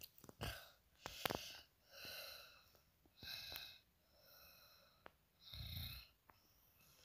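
A person breathing softly close to the microphone: about five short, faint breathy puffs, with a few light clicks between them.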